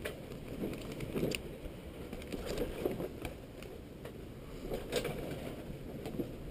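A folded paper instruction sheet rustling and crinkling as it is handled and turned over, in scattered short crackles over a low steady rumble.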